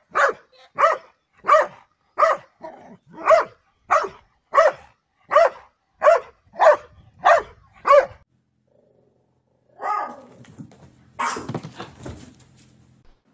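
Dog barking over and over at an even pace, about a dozen sharp barks, a little more than one a second, that stop about eight seconds in. A few short noisy sounds follow near the end.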